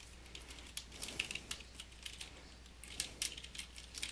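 Typing on a computer keyboard: irregular key clicks in quick clusters with short pauses between, over a faint steady low hum.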